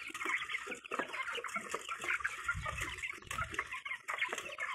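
A flock of month-old chicks peeping and chirping continuously while they feed, many short overlapping calls.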